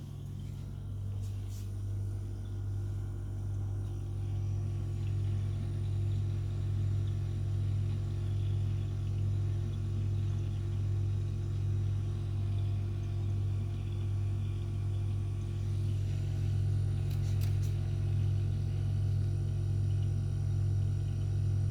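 Compressor of an IKEA KÖLDGRADER refrigerator running with a steady low hum.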